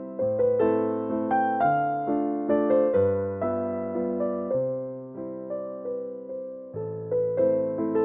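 Background piano music: a melody over bass notes, each note struck and then fading.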